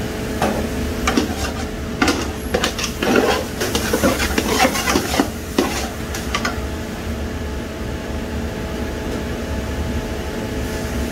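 Metal spatula scraping and knocking against the side and bottom of a large aluminium pot while stirring the thick bhaji mixture, in quick irregular strokes that stop about six and a half seconds in. A steady mechanical hum runs underneath.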